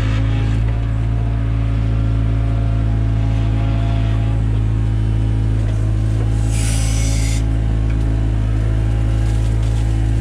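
Takeuchi TB175 excavator's diesel engine running steadily under work, with a brief hiss a little past halfway.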